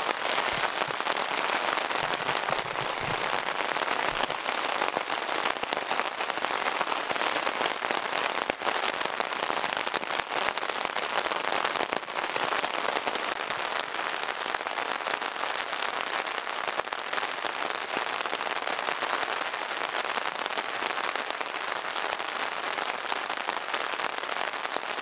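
Heavy rain falling steadily on a tent's fabric, heard from inside the tent: a dense, even hiss of countless drops striking the fly.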